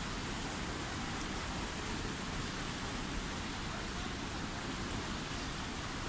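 Indoor swimming pool ambience: a steady, even wash of water noise from lap swimmers splashing, with no distinct strokes standing out.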